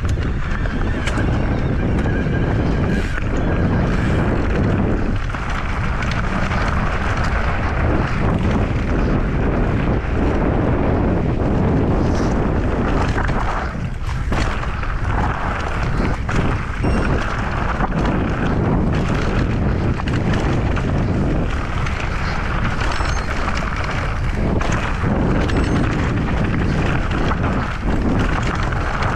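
Wind buffeting the action camera's microphone during a fast mountain-bike descent, over the steady crunch of tyres on loose stony dirt. A Mondraker Crafty Carbon XR electric mountain bike rattles and knocks as it runs over rocks.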